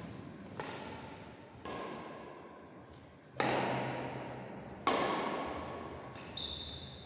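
Badminton racket strings striking a shuttlecock in a rally, five hits about one to one and a half seconds apart, each echoing through a large hall. The loudest two come about three and a half and five seconds in.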